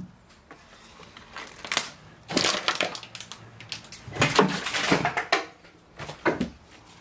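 Footsteps crunching over debris on the floor: a few rough, crackling bursts of steps, loudest about four to five seconds in.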